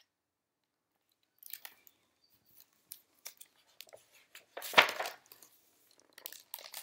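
Pages of a paper picture book being turned and the book handled: rustling and crinkling paper with small clicks, starting about a second and a half in, loudest in one brief rustle about two-thirds of the way through.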